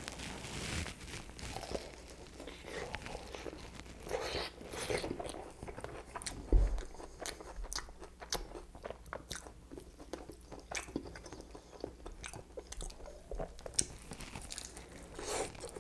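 Eating a piece of KFC fried chicken thigh drizzled with BBQ sauce: crunching bites into the battered crust and chewing, with many small crackles. A single low thump a little before halfway is the loudest sound.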